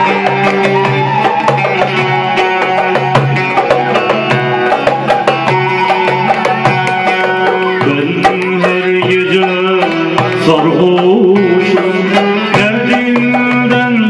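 Live Turkish folk music: two goblet drums (darbukas) keep a busy rhythm under a plucked lute and long held melody notes. About eight seconds in, the melody changes to a wavering, ornamented line.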